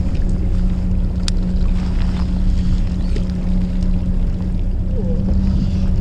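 Fishing boat's engine running with a steady low hum, plus one faint click about a second in.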